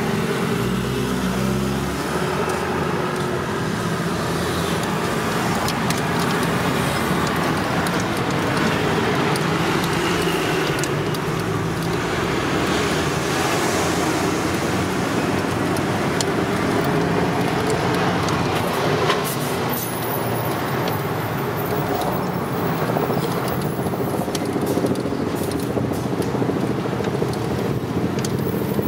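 Steady city road-traffic noise heard from a moving hand-pulled rickshaw, with the rumble of its wheels rolling on the road and a few short clicks and rattles.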